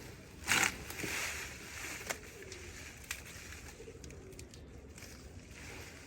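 Green onions being pulled up by hand from the soil: a sharp rustling rip of leaves and roots about half a second in, then softer soil rustling and a few scattered clicks and taps.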